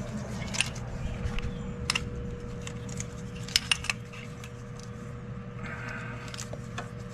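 Small metal parts clicking and tapping during hand work on a car's suspension: a few sharp clicks, three of them in quick succession a little past halfway, over a steady low hum.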